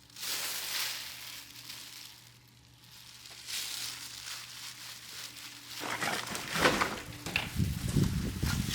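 Oak-wood fire crackling and hissing as it catches. Louder rumbling and crackling begin about six seconds in.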